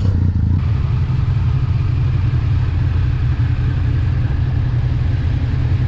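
Motorcycle engine running steadily at an even pitch.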